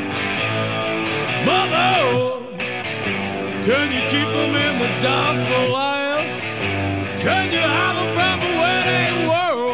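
Music playing: a song with a singer over a steady drum beat.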